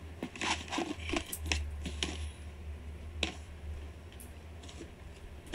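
A sneaker being handled and lifted out of its cardboard shoebox: light rustling, scraping and knocks, busiest in the first three seconds, over a low rumble of handling on the microphone.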